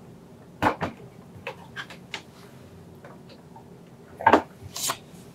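Plastic housing of a Singer Confidence Quilter sewing machine knocking and scraping on a wooden tabletop as it is handled and tipped onto its back: a series of light knocks, loudest a little after four seconds in.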